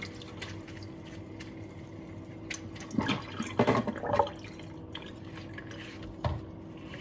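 Carburetor parts being wiped with a rag and handled, with liquid dripping and a few light knocks and clicks about three, four and six seconds in, over a steady faint hum.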